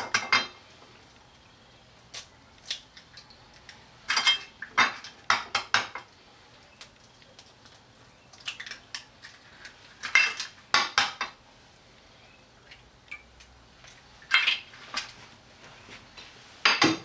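Eggs being cracked one at a time against the rim of a ceramic plate: clusters of sharp taps and clinks every few seconds as three eggs are broken open.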